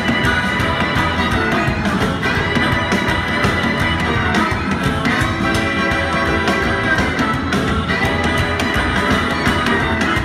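Live country band playing an instrumental break, with harmonica, fiddle, electric guitar and upright bass over a steady beat.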